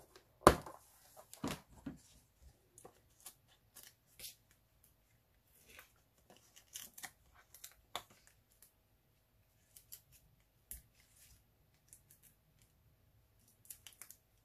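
Scattered small clicks, taps and paper rustles as foam adhesive dimensionals are peeled off their backing sheet and a scalloped cardstock layer is pressed down onto a card front. The loudest tap comes about half a second in.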